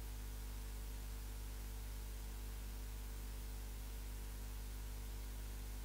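Steady low electrical mains hum with an even hiss underneath, unchanging throughout.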